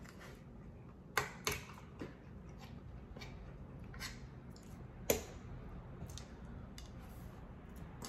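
A metal fork clicking against cooked lobster shell as meat is picked out. There are about five sharp clicks, the two loudest about a second in.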